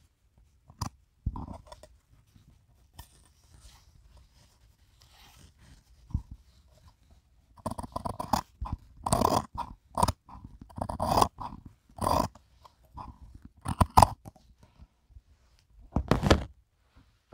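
Scissors snipping along a sewn seam of a thin plaid fabric garment, in short crunchy cuts. A few cuts come early, then a quick run of them in the middle, and one more near the end.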